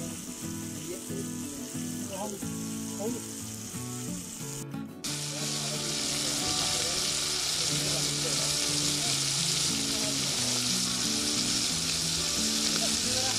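Chicken pieces frying in oil in a large metal wok over a wood fire: a steady sizzle, cut off briefly about five seconds in and louder after.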